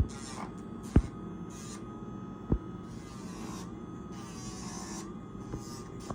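A small electric motor hums steadily, typical of a pet nail grinder. Its pitch wavers in the middle with bursts of high hiss, and two sharp clicks come about a second in and again at about two and a half seconds.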